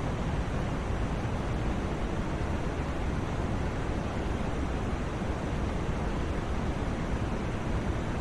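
Steady white noise for sleep: an even, unchanging rushing hiss, fuller in the low end and thinning toward the top.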